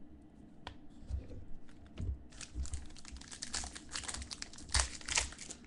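Crinkling and tearing of a trading-card pack wrapper being handled and opened, starting with a few light clicks and turning to dense crinkling about two seconds in.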